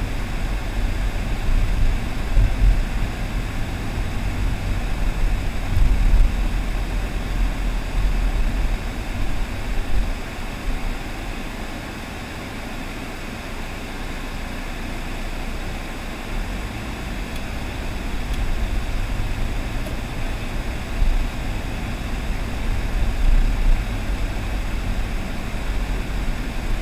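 Car driving slowly, heard from inside the cabin: a steady low rumble of engine and tyres with some road noise. It grows quieter for a few seconds around the middle, then builds again.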